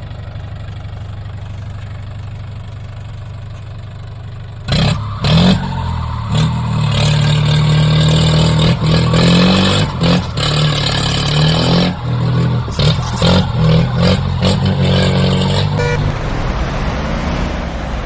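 Tractor engine sound running steadily, then much louder and throatier from about five seconds in, with clattering knocks over it, easing off near the end.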